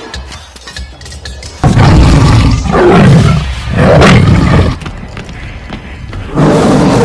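A tiger roaring, as a recorded sound effect: several loud, deep roars begin about one and a half seconds in, and a longer roar starts near the end.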